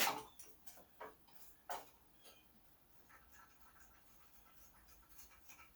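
Small tools or parts being handled on the snowblower: a sharp knock at the start, two lighter clicks about a second and a second and a half later, then faint small handling sounds.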